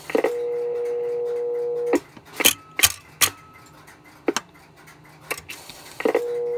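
A steady pitched tone lasting about two seconds, then several separate sharp mechanical clicks from the payphone's coin hopper mechanism being worked by hand, and the same tone again about six seconds in.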